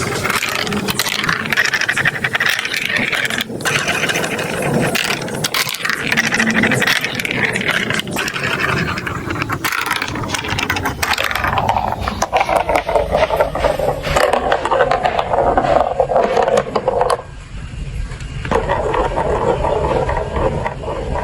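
Marbles rolling and rattling down a plastic marble run track, a continuous clattering rumble that drops lower in pitch about halfway through and briefly quietens near the end.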